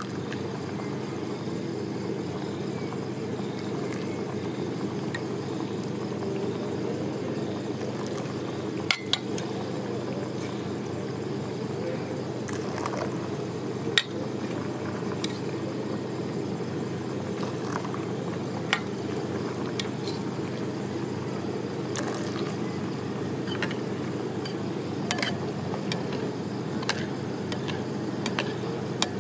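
Metal spoon stirring a thin dipping sauce in a ceramic bowl, with a handful of sharp clinks of the spoon against the bowl, over a steady low hum.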